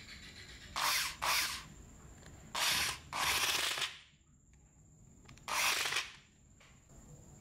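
Electric screwdriver running in five short bursts, driving the screws of a chainsaw's cord clamp home in a plastic housing.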